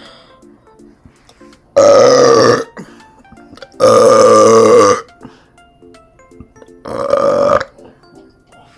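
Three loud, long burps from a person, the middle one the longest, over quiet background music.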